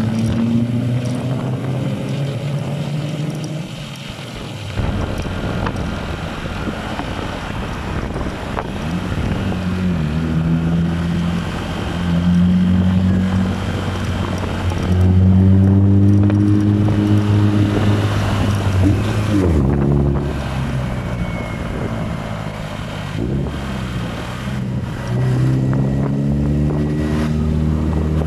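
Motorcycle engine running while being ridden, its note rising and falling repeatedly as the rider opens and closes the throttle through the gears, with wind noise on the phone's microphone.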